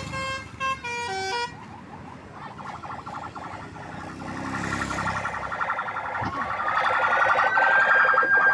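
Bus telolet (basuri) musical horn playing a quick stepped tune of a few notes, then a fast-pulsing siren-like warble that grows louder, with one tone gliding up about two-thirds of the way through and holding.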